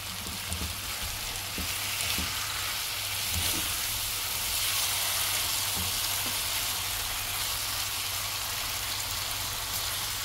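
Spiced chicken pieces sizzling steadily in a hot non-stick pan as a silicone spatula stirs the just-added sauces through them, with soft knocks of the spatula against the pan. The sizzle grows a little louder about two seconds in.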